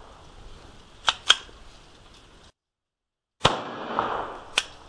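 Smith & Wesson M&P22 pistol firing .22 LR: sharp reports, two in quick succession about a second in, then after the sound cuts out for about a second, two more, the first of them with a short trailing echo.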